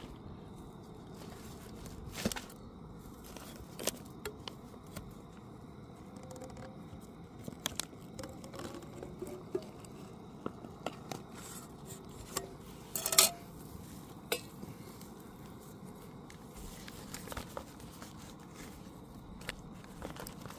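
Intermittent clinks, taps and rustles of camp cooking gear and food packaging being handled, with a louder clatter about thirteen seconds in.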